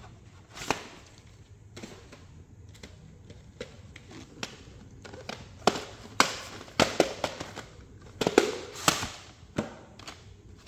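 VHS tape cassettes and their plastic cases being handled, giving irregular clicks and knocks with some rustling. The clicks come thickest a few seconds in.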